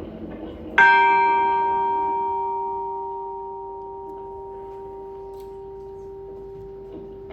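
A bell struck once, about a second in, then ringing on with a long, slowly fading tone; its higher overtones die away first while the low note carries on.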